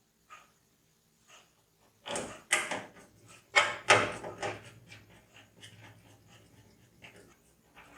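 Hard parts and packaging being handled during a PC build: a few faint ticks, then from about two seconds in a burst of sharp knocks and clatter, loudest twice, trailing off into scattered clicks.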